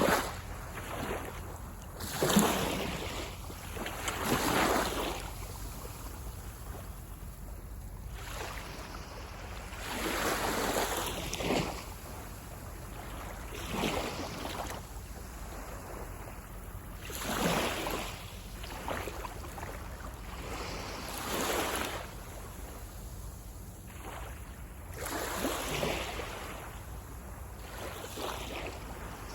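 Sea waves breaking and washing up the beach, a surge of surf every three to four seconds. A steady low rumble of wind runs underneath.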